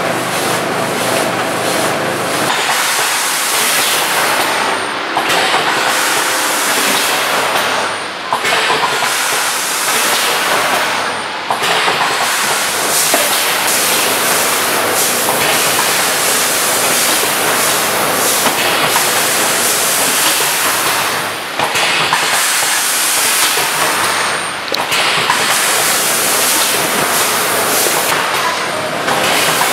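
Vertical form-fill-seal packing machine running on rice puffs: a steady hissing noise with fine clatter, dipping briefly about five times.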